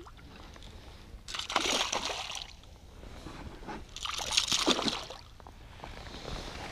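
Water splashing and sloshing in two bursts, about a second and a half in and again about four seconds in.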